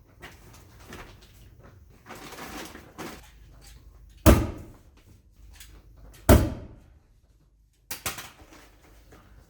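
Two loud knocks about two seconds apart, each with a short ringing tail, with rustling before them and a few lighter clicks near the end.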